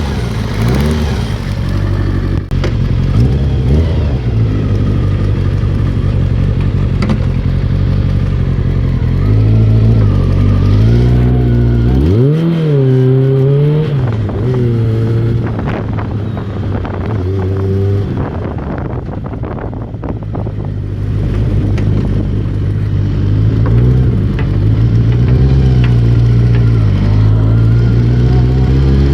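Kawasaki ZR-7S air-cooled inline-four motorcycle engine running at idle, blipped up and back down once about twelve seconds in, and held a little above idle near the end. It is being run to show a ticking noise from the engine.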